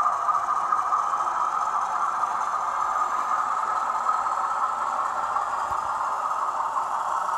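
HO-scale model locomotive running along the track: a steady whir and rattle of the small motor and wheels on the rails.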